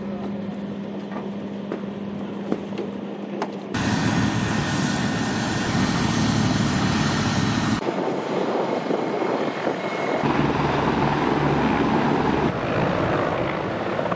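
Military helicopters, Mi-8AMTSh transport-attack types, with their turbine engines and rotors running. First a steady engine hum with a held tone, then louder rotor and engine noise that changes abruptly several times.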